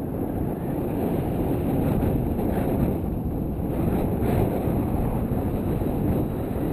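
Steady low rumble of wind buffeting the microphone of a selfie-stick camera, from the airflow of a tandem paraglider in flight.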